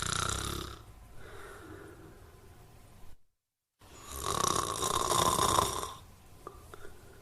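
A sleeping person snoring. A loud snore fades out under a second in and is followed by quieter breathing. After a brief silent gap about three seconds in, a second loud snore of about two seconds is again followed by quieter breathing.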